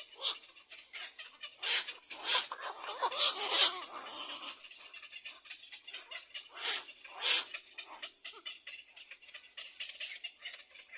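Little egret nestlings giving harsh, rasping begging calls: a cluster of about five in the first four seconds, then two more about seven seconds in.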